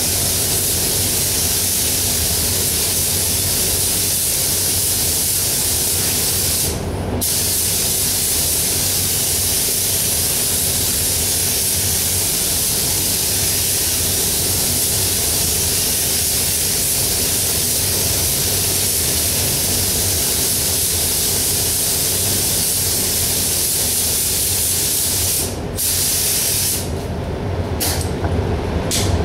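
Gravity-feed paint spray gun hissing steadily as compressed air atomises sealer primer onto a bumper. The trigger is let off briefly about seven seconds in and again near the end, where the hiss goes on and off in short pulses. A steady low hum runs underneath.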